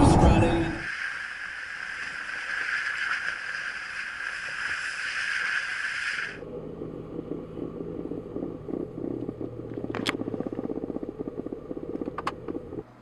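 Jeep Wrangler driving on a snow-covered gravel rail bed: a steady hiss of tyre and wind noise. It cuts off abruptly about six seconds in, leaving a low, finely pulsing engine rumble, with two sharp clicks near the end.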